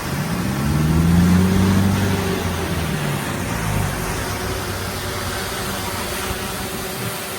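Heavy diesel engine of earthmoving machinery revving up in the first second, holding, then easing back to a steady run about three seconds in.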